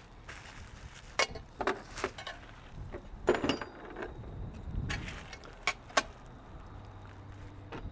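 Small metal parts being handled: bolts and bash plate brackets clinking and knocking against each other and the parts tray, in scattered separate clicks, one about three and a half seconds in with a brief metallic ring.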